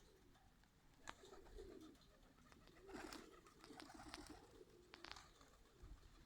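Birmingham roller pigeons cooing softly, with a few short sharp clicks mixed in.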